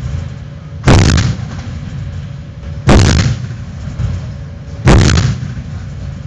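Oto Melara 127/64 Lightweight naval gun on a FREMM frigate firing three rounds, one about every two seconds, each a sharp blast with a short rolling tail, over a steady low rumble.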